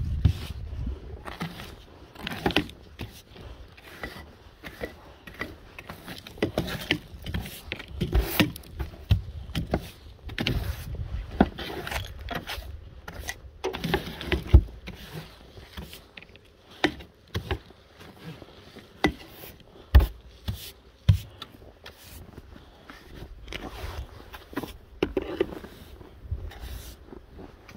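Snow brush sweeping and scraping snow off a car's windscreen and bodywork in uneven strokes, with scattered sharp knocks and clicks.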